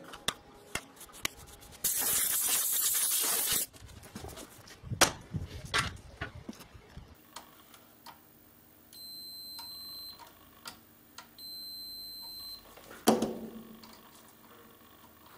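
Aerosol can hissing through an extension straw for about two seconds, followed by small clicks and taps of handling. Later, two steady high electronic beeps about a second long each, typical of a multimeter's continuity tester touched across the amplifier's fuses, then a single knock.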